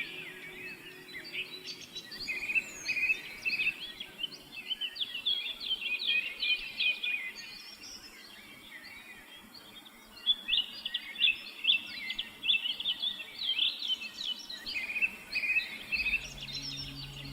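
Songbirds chirping and singing in quick overlapping phrases, thinning to a lull around the middle before picking up again. Soft steady music notes come in near the end.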